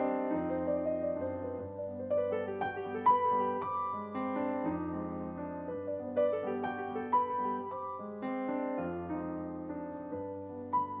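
Piano four hands (two players at one piano) playing a festive march: struck chords over held bass notes.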